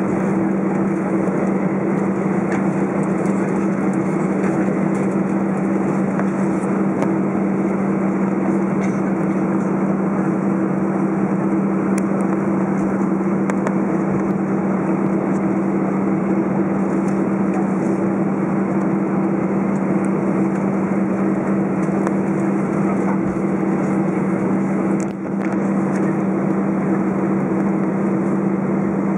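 Steady cabin noise of an Airbus A319 taxiing: the engines' low, even drone with two steady tones, heard from inside the cabin. The level dips briefly about 25 seconds in.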